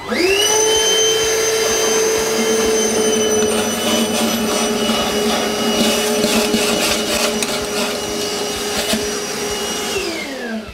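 A small wet/dry shop vacuum motor switches on and spins up to a steady whine, sucking water out of a toilet bowl. There is an irregular crackling slurp partway through. Near the end it switches off and winds down, its pitch falling.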